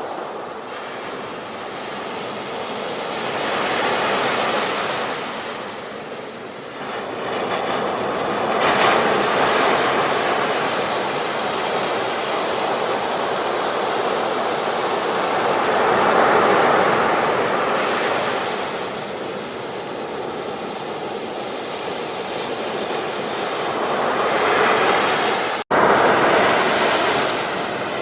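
Ocean waves breaking on a beach, the surf swelling and easing in slow surges every several seconds. Near the end the sound cuts out for an instant.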